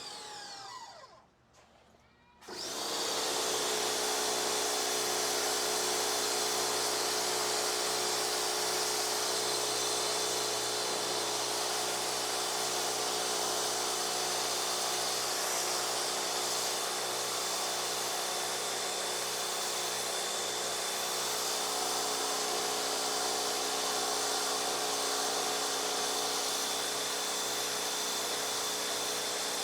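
Pressure washer running and spraying with a steady whine. Just after the start it winds down and goes nearly quiet for a second or two, then starts up again and runs steadily.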